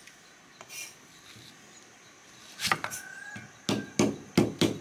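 Kitchen utensils knocking and clattering on a hard surface: quiet at first, then about six sharp knocks in the last two seconds, two of them followed by a short ringing tone.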